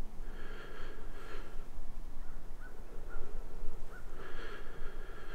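Hushed breath sounds from a person close to the microphone, in two spells: one starting just after the beginning and one near the end.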